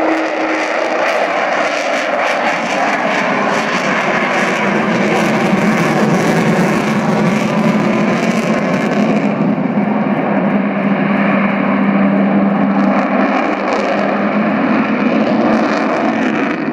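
Avro Vulcan XH558's four Olympus turbojets running loud as the delta-wing bomber flies past in display, a steady jet roar with a low drone under it. The hiss at the top thins out about nine seconds in as it draws away.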